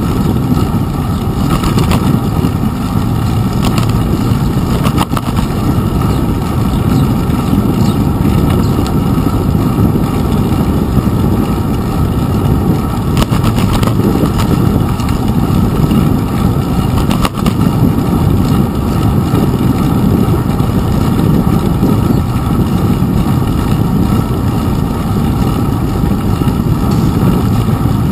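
Steady rumble of a bicycle riding over wet pavement, heard through a GoPro Hero 2 mounted on the handlebars, with a few sharp knocks as it rolls over bumps.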